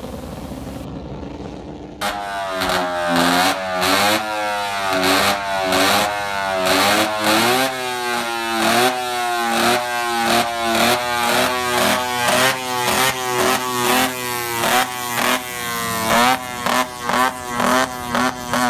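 Racing motorcycle engine revved hard over and over, each rev rising in pitch and dropping back, beginning abruptly about two seconds in. Near the end the revs come in quick blips, about three a second, before the engine falls away.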